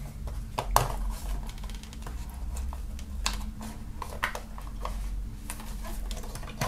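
Irregular clicks and knocks of a lamp's housing being handled while someone fiddles at its battery compartment cover, trying to slide it open.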